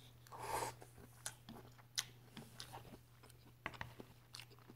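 Faint close-up chewing of a mouthful of broccoli and ramen: soft wet mouth clicks and light crunches, with a short breathy rush about half a second in.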